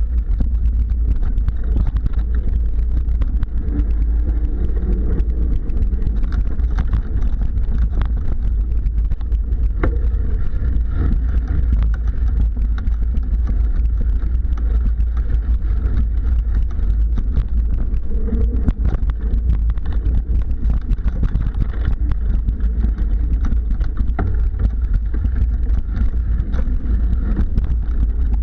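Mountain bike rolling fast over dirt singletrack, its tyres and frame rattling with frequent small knocks and clicks from bumps, over a constant heavy wind rumble on the microphone.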